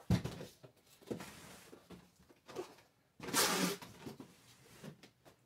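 Cardboard box and packaging being handled: a knock at the very start, light rustling and shuffling, then a louder scraping rustle of cardboard for about half a second a little past three seconds in.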